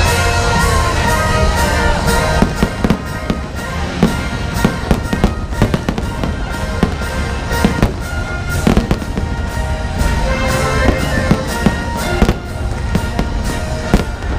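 Fireworks display: aerial shells bursting in quick, irregular succession, many bangs a few seconds apart or closer, with music playing alongside.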